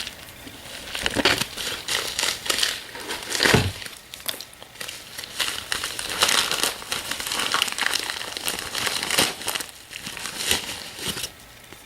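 Packaging being crinkled and rustled by hand as a parcel is opened, in irregular bursts, with a couple of dull bumps from handling in the first few seconds.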